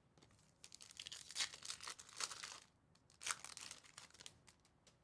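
Wrapper of a baseball trading-card pack being torn open and crinkled by hand: a run of crackling tears from about half a second in to nearly three seconds, another short crinkle a little after three seconds, then a few small rustles.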